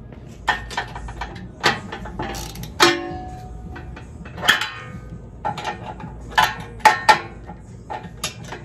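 Irregular metal clinks and taps of a socket wrench and extension against the steel bumper and mounting bolts while the winch bolts are snugged up, a few hits ringing briefly.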